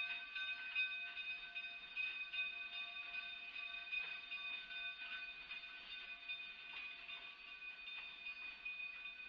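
Narrow-gauge passenger cars rolling slowly past as the train pulls in, with a steady high-pitched squeal from the running gear and light clicking of wheels on the rail joints, fading gradually.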